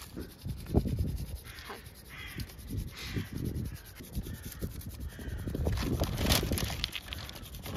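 Quick scratchy strokes of a stick rubbing across paper laid over engraved stone, with the paper rustling under the hands, while a crow caws a few times.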